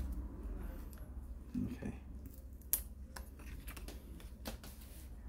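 Light clicks and taps of plastic and a small pry tool as a laptop's display cable connector is worked loose from its motherboard socket, with one sharper click about halfway through.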